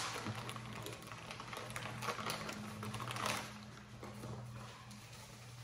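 Plastic packaging crinkling and rustling in the hands as a small model horse is unwrapped, with a louder burst of crinkling about three seconds in, over a steady low hum.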